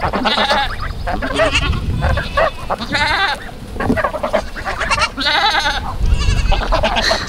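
Goats bleating repeatedly, a string of short quavering calls one after another.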